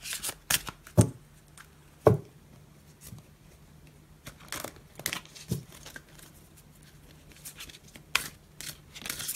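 A deck of large oracle cards being handled and shuffled by hand: irregular slaps, snaps and rustles of card stock at uneven intervals.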